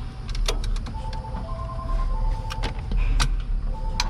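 A ratchet and other metal tools clinking and knocking as the ratchet is worked out of a van's engine compartment: several sharp clicks scattered over a low rumble. Faint steady tones come and go in the background.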